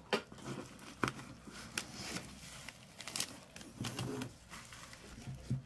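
Handling of a corrugated cardboard shipping box and bubble wrap: scattered crinkles, rustles and light taps as the bubble-wrapped phone box is pulled out of the carton.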